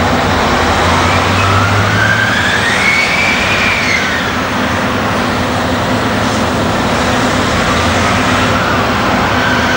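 Heavy diesel earthmoving machinery running: a Liebherr R992 hydraulic excavator and a loaded Caterpillar 769C haul truck pulling away. A high whine rises for about three seconds, falls back about four seconds in, and rises again near the end, over the steady engine noise.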